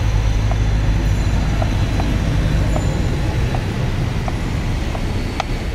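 Steady rumble of street traffic, with faint sharp taps of a knife on a cutting board about once or twice a second as herbs are chopped.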